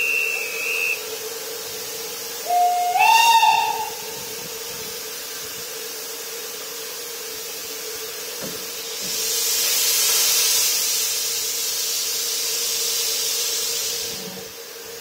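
A short high whistle, then the LMS 4F 0-6-0 steam locomotive's whistle gives one brief blast about three seconds in, stepping up in pitch. From about nine seconds, steam hisses loudly from the locomotive's open cylinder drain cocks, fading near the end.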